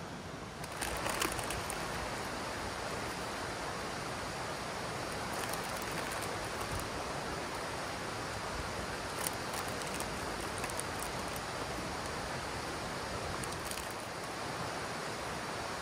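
A steady rushing hiss with a few scattered sharp crackles from a small wood fire.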